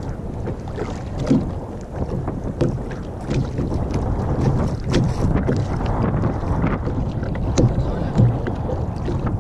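Wind buffeting the microphone over choppy sea, with small waves slapping and knocking irregularly against a kayak's hull.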